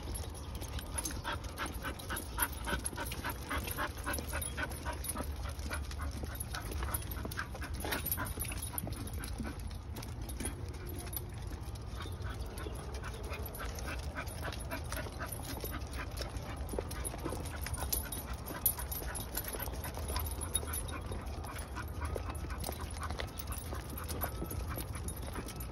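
Dog making repeated short sounds, over a steady low rumble.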